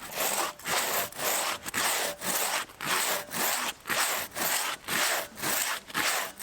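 Hand saw cutting into a spruce trunk: a steady back-and-forth rasp of about two strokes a second.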